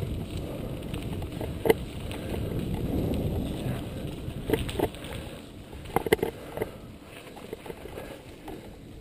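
Cross-country mountain bike being ridden: wind rushing over the camera microphone and rolling tyre noise, with several sharp knocks and rattles from the bike over bumps. The rush eases off about halfway through.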